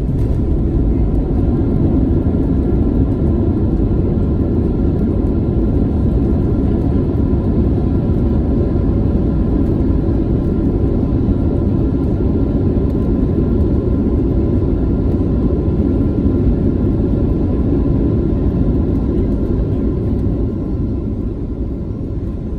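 Boeing 737-800 heard from inside the cabin: a steady low rumble of its CFM56 engines and the airflow, with faint steady engine tones above it, easing off slightly near the end.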